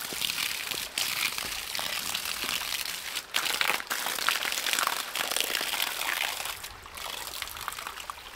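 Water trickling and pouring, mixed with the crinkly rustle of dry leaf litter. The hiss drops out briefly a few times.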